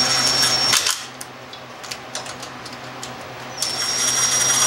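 Cordless driver with a socket extension lightly snugging down cylinder head bolts on a Kohler engine: a steady high whine that stops about a second in, a few faint clicks of socket and bolt, then the whine starts again near the end.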